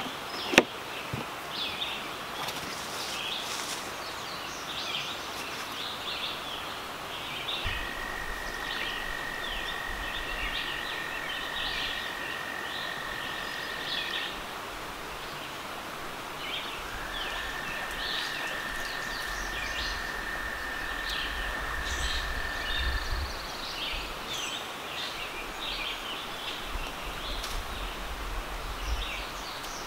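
Small birds chirping on and off over a steady outdoor background, with two sharp clicks right at the start. In the middle, a steady high whine with a low rumble under it sounds twice, each time for about six seconds.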